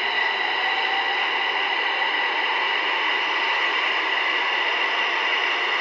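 Berlin U-Bahn train running, heard from inside the car: a steady rushing noise with a constant high whine.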